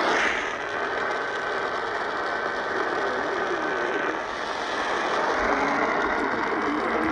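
Crackling static and hiss on a NOAA Weather Radio broadcast between alert messages, thin and band-limited like a poor phone line, with a faint steady whistle tone for a few seconds near the start.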